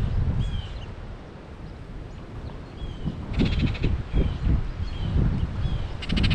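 Small birds calling at a feeder: a short chirp repeated every half second or so, and twice a fast rattling trill, over a low rumbling noise.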